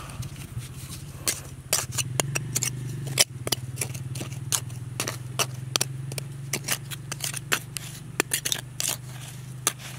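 A small hand tool scraping and picking at loose soil: a quick, irregular run of sharp scratches and clicks, over a steady low hum.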